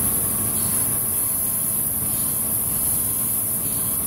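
Cam grinding machine running steadily as it grinds the lobes of a 5.9 Cummins camshaft under a pouring stream of coolant oil: an even hum with faint steady tones and a high hiss.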